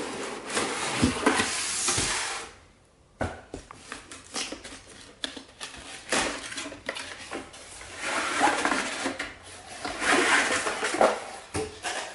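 Cardboard packaging being handled: the cardboard box and its insert scraping and rubbing against the air purifier's plastic housing as they are pulled off and set aside, with a short pause about three seconds in.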